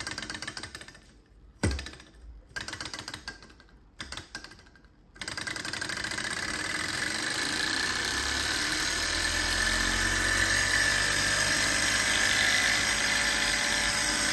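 High-speed horizontal-flywheel hot-air Stirling engine, alcohol-burner heated, being flicked over by hand: a few short spins and a sharp knock about two seconds in, then at about five seconds it catches and runs on. Its noisy mechanical rattle climbs in pitch and grows louder as it speeds up.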